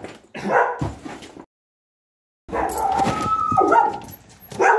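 A pet dog barking in separate bursts: two in the first second and a half, a longer stretch from about two and a half to four seconds in, and another near the end. Each burst cuts off into dead silence, as edited-in recordings.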